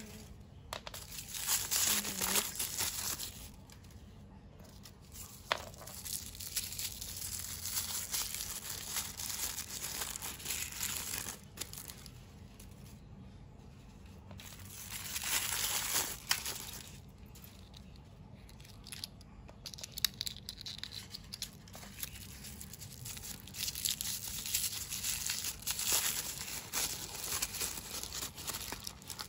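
Crinkly wrappers of an L.O.L. Surprise toy ball being torn open and crumpled by hand, in irregular rustling bursts with a few sharp clicks between them.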